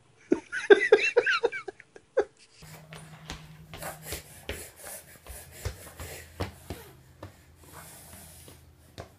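A baby's short, breathy squeals and giggles, about a dozen quick pitched calls over the first two seconds or so. Then quieter room sound with scattered light taps and knocks over a low hum.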